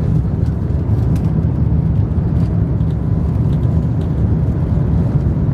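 Cabin noise of a British Airways Airbus A350-1000 on takeoff: its Rolls-Royce Trent XWB-97 engines at high power and the rushing air give a steady, deep rumble, with a few faint light clicks from the cabin.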